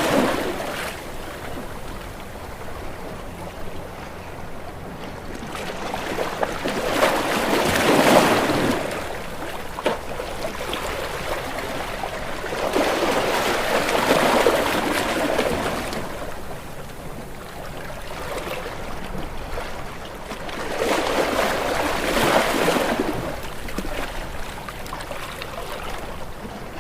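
Ocean waves breaking against rocks: each wave surges in as a loud rush of churning water, then falls back to a steady wash, with a new surge every six to eight seconds.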